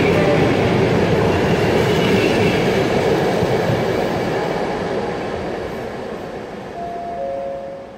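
Passenger coaches of a PKP Intercity train rolling past on the rails, the noise fading steadily as the train moves off. Near the end two short steady tones sound one after the other.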